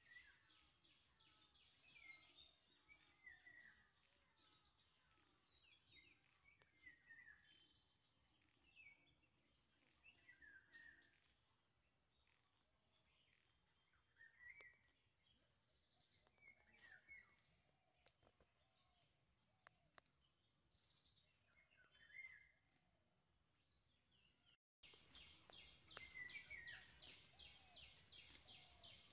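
Faint outdoor ambience: a bird giving short, falling chirps every second or two over a steady high-pitched whine. The sound cuts out for an instant near the end.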